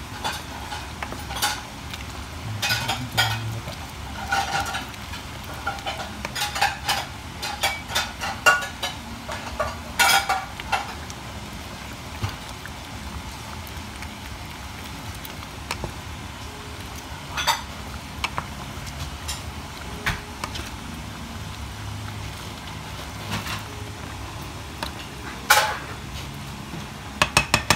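Wooden spoon stirring a pot of coconut milk and taro leaves at the boil, clicking and scraping against the metal pot in irregular strokes. The strokes come thick for the first ten seconds or so, then only now and then, over a steady low bubbling.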